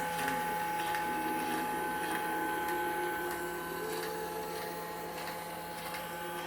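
Repaired yellow octopus machine running: a steady electric hum and whine with a motor tone that drifts slowly in pitch, and faint ticks. It is running smoothly after repair.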